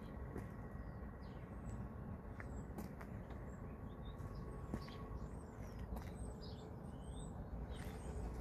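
Birds chirping now and then over a low outdoor rumble, with a few sharp clicks.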